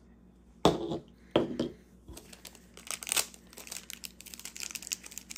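Plastic packaging being torn open and crinkled by hand. Two sharp rips in the first second and a half, then steady rapid crinkling.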